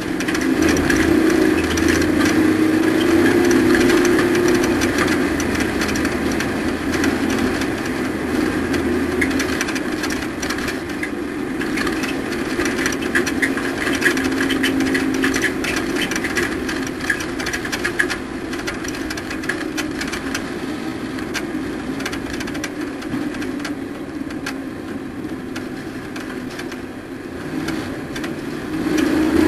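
Race truck's engine running at a fairly steady, slightly wavering pitch, with a constant clatter of rattles over it, swelling briefly near the end.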